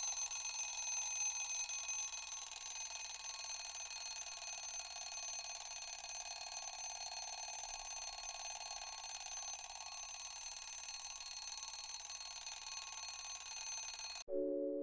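Wake-up alarm going off with a steady, high-pitched electronic ringing that stops abruptly near the end as it is switched off, giving way to soft mallet-percussion music.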